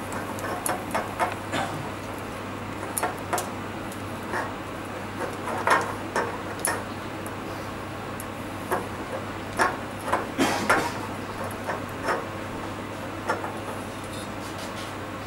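Silicone spatula stirring sugar as it caramelises in a stainless steel saucepan, with irregular light knocks and scrapes against the pan. A steady low hum runs underneath.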